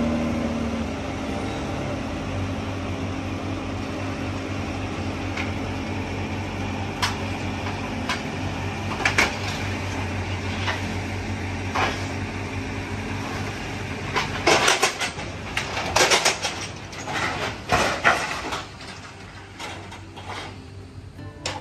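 Steady engine hum while a pickup truck is driven off a car-hauler trailer, with scattered metal knocks that turn into a run of loud clanks and bangs as it crosses the trailer's steel decks and ramps. It goes quieter near the end.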